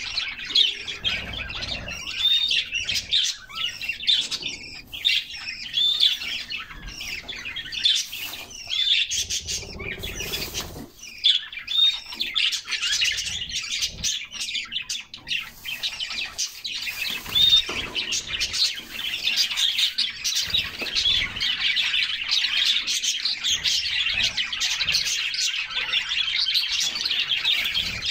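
Several canaries singing at once: a dense, continuous stream of quick chirps and trills, busier in the second half.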